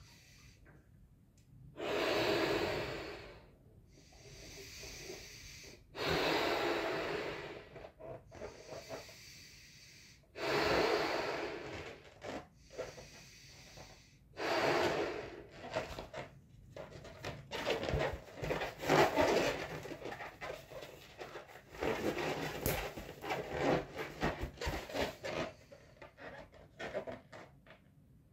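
A latex party balloon being blown up by mouth: about four long, breathy puffs of air forced into it a few seconds apart, then a run of shorter, choppy rubbing and puffing sounds as the nearly full balloon is handled.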